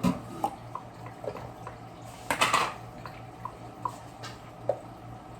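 Light clinks of utensils and a lid against a cooking pot while pasta water is scooped and poured off, with one short splash about halfway through, over a low steady hum.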